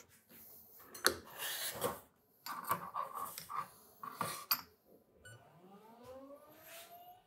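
Clicks and knocks of a portafilter being handled and locked into an espresso machine, then, about five seconds in, the machine's pump starts with a whine that rises steadily in pitch as the shot begins.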